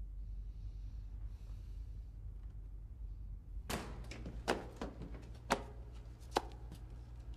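Low steady room hum, then from about halfway in a string of sharp knocks and clicks, the three loudest about a second apart.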